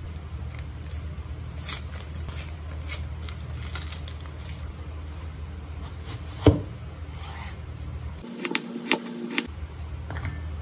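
Dry onion skin crackling and rustling as it is peeled off by hand. About six and a half seconds in comes a sharp knock of a kitchen knife on a wooden cutting board, then a few more knife cuts through the onion onto the board, over a steady low hum.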